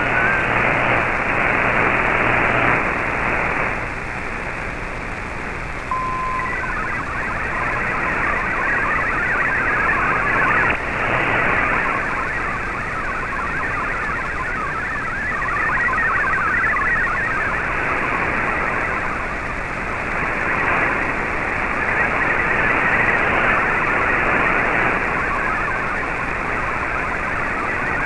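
Shortwave digital-mode data signal received on an Icom IC-R8600: a dense, fast-changing warble of MFSK tones over static hiss. A short steady beep comes about six seconds in, where the transmission switches from MFSK32 to MFSK64.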